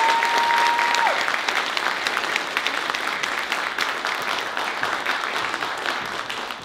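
Audience applauding, a dense patter of many hands that slowly tapers off toward the end. A single held high note rises, holds and falls over the first second.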